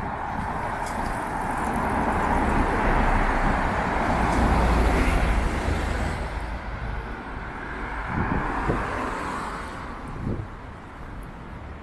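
A car passing by on a city street, its tyre and engine noise swelling to a peak about five seconds in and then fading away.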